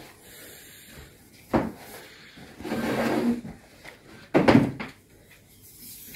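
Knocks and bumps of household objects and furniture being handled while tidying a room: one sharp knock about a second and a half in, a rougher stretch of handling noise around three seconds in, and a louder cluster of knocks a little later.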